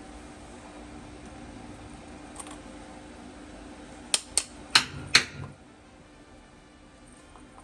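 MIG welding torch nozzle knocked four times in quick succession, sharp metallic taps to clear weld spatter, a little after four seconds in. A low steady hum runs beneath and stops just after the taps.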